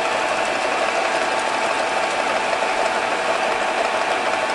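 Small pulley-driven bench-top mechanism running, its wheels spinning and mechanical revolution counter turning, making a steady mechanical noise at an even level.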